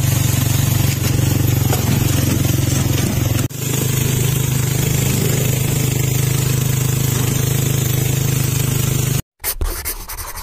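An engine running steadily at an even speed, with a short break about three and a half seconds in; it cuts off suddenly near the end.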